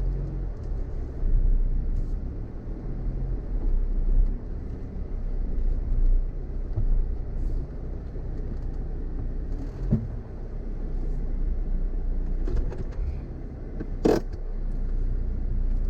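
Car engine and running gear rumbling low and steady from inside the cabin as the car crawls over a rough off-road track, with a sharp knock about fourteen seconds in and a few lighter knocks before it.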